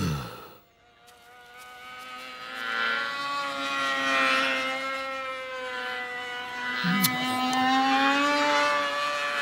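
Small propeller plane's engine buzzing, a cartoon sound effect, fading in over the first few seconds and then holding steady as the plane approaches. There is a short falling voice sound at the very start and a brief vocal grunt about seven seconds in.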